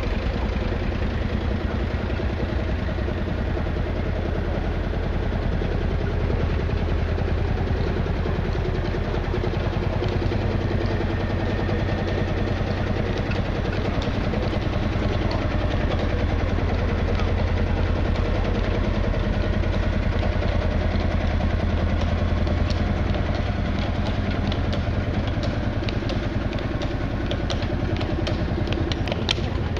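Vintage tractor engines running steadily as the tractors drive slowly past, with a strong low engine beat. A run of sharp clicks comes in near the end.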